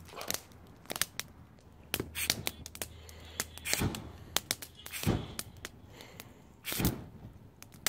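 Wood fire in a metal fire bowl crackling, with irregular sharp cracks and a few heavier pops about 4, 5 and 7 seconds in.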